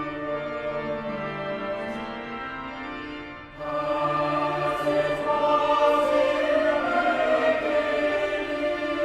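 Choir singing slow, sustained sacred music in held chords. About three and a half seconds in the sound briefly drops, then a fuller, louder phrase begins.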